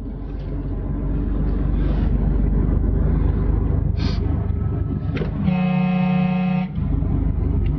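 A heavy truck's engine running steadily, heard from inside the cab, then one steady horn blast of about a second, a little past halfway through, as a car cuts in front.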